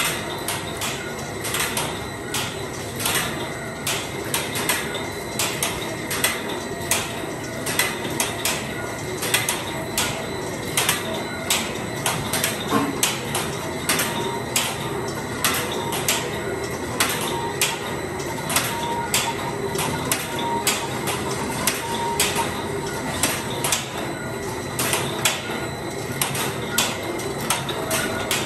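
Automatic elastic cord knotting machine running, its mechanism cycling with a steady, even clatter of sharp clicks and clacks, about two to three a second, over a faint steady high tone.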